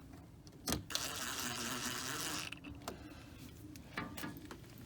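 Cordless impact driver, turned down to a low setting, running for about a second and a half as it drives a screw into the aluminium screen-door frame, followed by a couple of light clicks.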